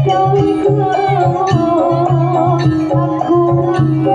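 Live jaranan gamelan music played loud through a sound system: a wavering melody line over repeated pitched percussion notes and a steady pulsing low drum beat.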